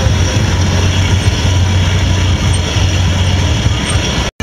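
Coal forge with its blower running: a steady rushing rumble of air driven through the burning coal fire. It cuts off abruptly near the end.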